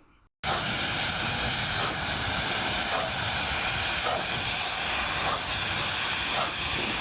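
Steam locomotive running: a steady rushing roar of steam and motion, with a faint beat about once a second.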